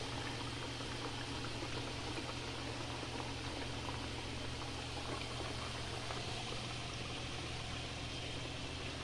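Potato sticks deep-frying in a pan of hot oil, sizzling and bubbling steadily, with a low steady hum underneath.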